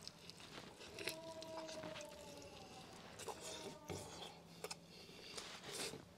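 Faint eating sounds: a man biting saucy fried meat off bamboo skewers and chewing, with scattered small clicks and crunches. A faint held note, falling slightly, sounds about a second in.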